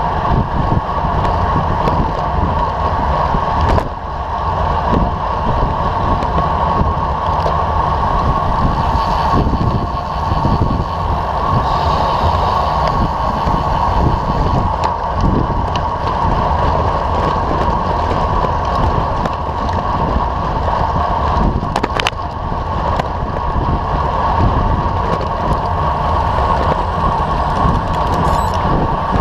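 Steady wind rush over the microphone of a camera mounted on a road bicycle moving at speed, mixed with tyre and road rumble on asphalt. A single sharp click about two-thirds of the way through.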